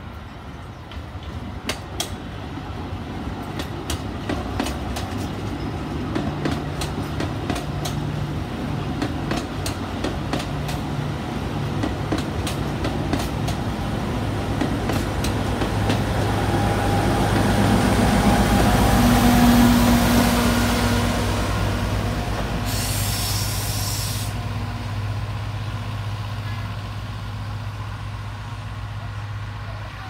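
Alishan Forest Railway diesel locomotive running at low speed as the train approaches, its steady low engine note growing louder and then easing off, with scattered clicks of wheels on the rails. A brief hiss comes a little after the loudest point.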